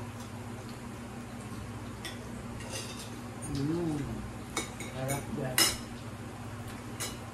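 Spoon and fork clicking against ceramic plates during a meal, a few sharp clinks from about halfway through. A short hummed voice sound comes just before them, over a steady low hum.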